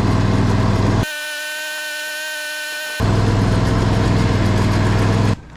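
A small engine running loud and steady with a low hum, broken for about two seconds by a high, even whine without the hum, and then the engine again until it cuts off suddenly near the end.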